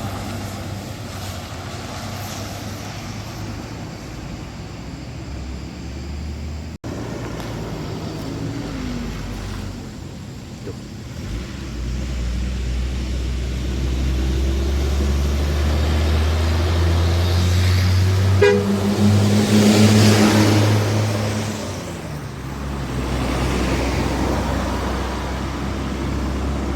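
Heavy road vehicle engines droning past. One grows louder over several seconds and sounds its horn for about two seconds at its loudest, then fades as another engine comes up.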